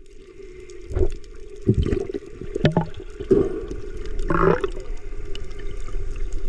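Sea water splashing and gurgling, with several separate splashes over a few seconds.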